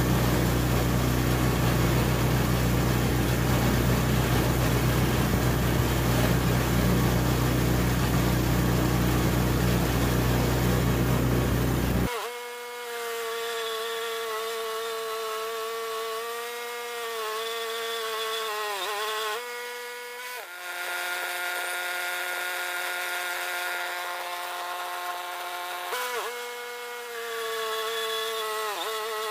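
Wood-Mizer LT10 bandsaw mill running and cutting through a maple log. For about the first twelve seconds a loud rushing noise with a low hum covers it. Then it becomes a steady high engine whine whose pitch sags briefly three or four times as the blade works through the cut.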